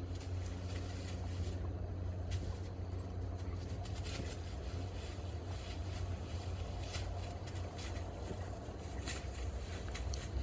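Steady low rumble of distant motor traffic, with faint scattered rustles of dry leaves as a dog noses through leaf litter.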